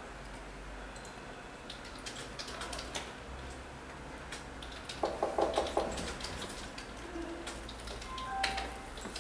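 Handling noise from a sneaker being turned and flexed in the hands: scattered light clicks and rubbing, with a quick rattling run of clicks about five seconds in.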